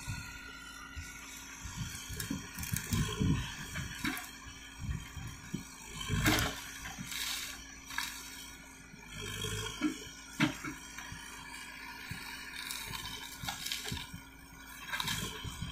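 Backhoe loader's diesel engine running steadily while its boom works into brush and a dead tree, with scattered sharp cracks and knocks, the loudest about six seconds in and another near ten and a half seconds.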